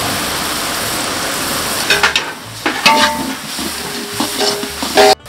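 Chopped onions and spice paste frying in oil in a large aluminium pot, a steady sizzle. From about two seconds in, a long steel ladle stirs the mass, scraping and clinking against the pot.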